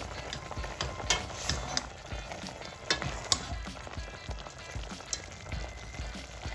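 Food being stirred in a cooking pot with a metal utensil: a steady sizzling hiss with sharp clicks of the utensil against the pot, the loudest about one, three and three and a third seconds in.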